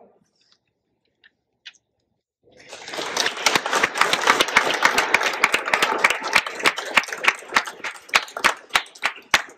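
Audience applause. It starts about two and a half seconds in after a short quiet and thins to a few separate claps near the end.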